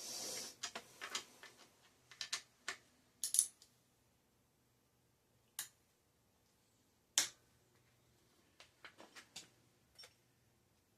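Scattered light clicks and clinks of small hard objects being handled, with a brief rustle at the start. The loudest sharp knocks come around three seconds in and again around seven seconds in.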